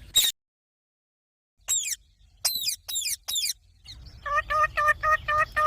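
Green parrot calling: a short shriek, a second of dead silence, then several sharp screeches that fall in pitch, followed near the end by a fast run of short repeated chattering calls, about six a second.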